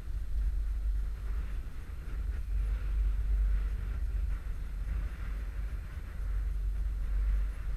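Wind buffeting a GoPro's microphone on a moving chairlift: a steady low rumble that swells and eases, with a faint hiss above it.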